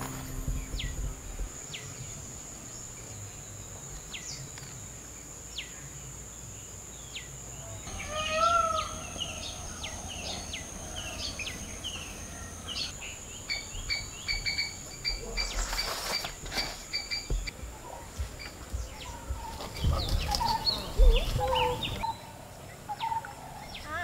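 Outdoor birds calling and chirping over a steady high insect drone, with a burst of rustling and a few low knocks in the second half.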